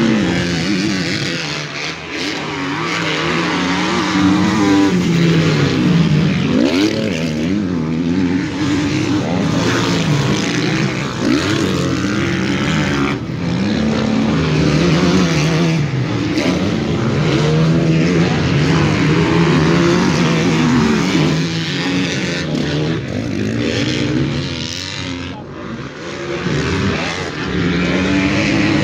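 Several motocross bikes racing around a dirt track, their engines revving up and dropping off over and over as the riders accelerate, shift and brake around the course.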